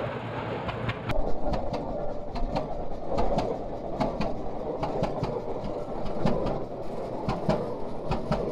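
1913 Case 30-60 tractor's two-cylinder engine running, its exhaust giving sharp, regular beats about two to three times a second over a steady low rumble.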